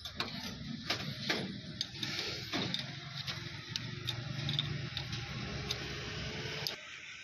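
Sharp metal clicks and clinks of a spanner on a banjo bolt fitting of a tractor's power steering cylinder hose, coming irregularly about once a second over a low steady background noise.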